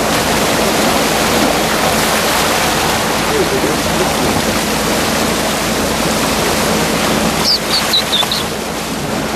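Steady rush of water along the bow of a moving boat, with a low, even engine hum beneath. A few short high chirps sound near the end.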